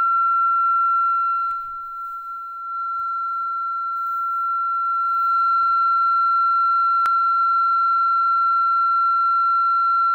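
A steady high-pitched electronic tone on one pitch. It drops in level for a few seconds starting about two seconds in, and a single sharp click comes about seven seconds in.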